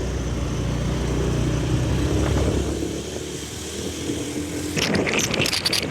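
Motorcycle engine running steadily with road noise during a ride; the engine hum drops away about three seconds in, and a different, busier noise starts near the end.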